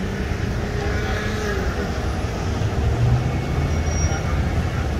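Steady low rumble of vehicle engines and road traffic.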